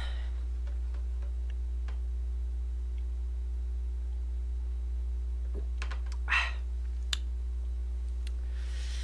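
Steady low electrical hum, with faint scattered clicks and a short breath about six seconds in, as a man drinks beer from a small glass.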